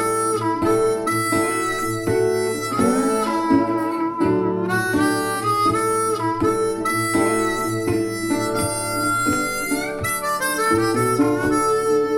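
Harmonica-led music with guitar accompaniment, played back through Grundig Super HiFi Box 2500 loudspeakers in a hi-fi audio test.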